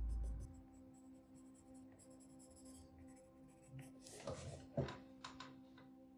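Pencil scratching on paper in short shading strokes, faint, with a quicker run of strokes about four seconds in. A low bump sounds at the very start.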